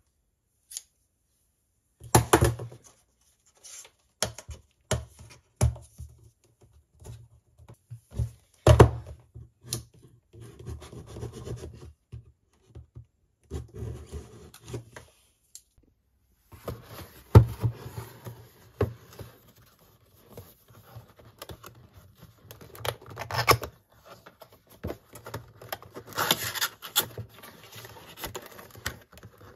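Cardboard product box being handled and opened: scattered sharp knocks and taps, with rustling and scraping of card flaps and a folded card insert. The rustling grows busier in the second half.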